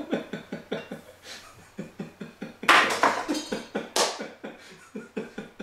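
Two men laughing: quick rhythmic chuckles at about six a second, breaking into a couple of loud bursts of laughter about three and four seconds in.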